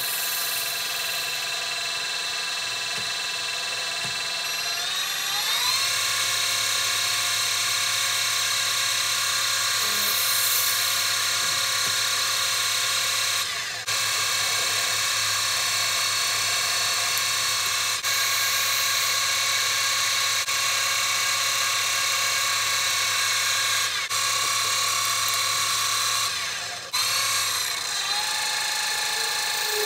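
Small metal lathe running with a steady motor whine, rising in pitch as the spindle speeds up about five seconds in, while a brass part is drilled from the tailstock.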